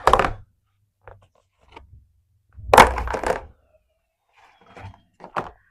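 Slime being handled and stretched: a few short sticky pops and squelches, the loudest about three seconds in.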